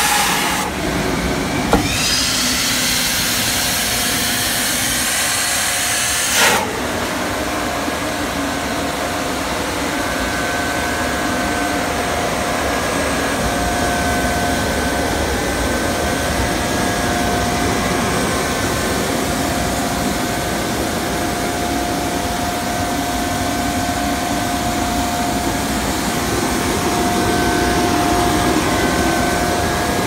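EUROVAC 20 hp central vacuum dust collection system running, a loud steady rush of air and blower noise. A sharp hiss of air stops suddenly with a thump about six seconds in, and after that a steady whine stands out over the rush.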